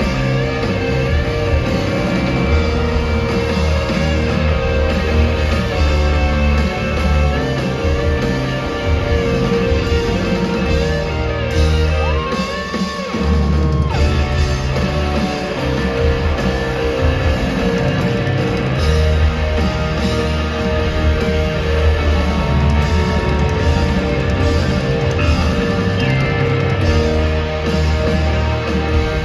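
Rock band playing live in an arena, heard from the stands: electric guitar over heavy bass and drums. About halfway through the bass drops out briefly under a single held note, then the full band comes back in.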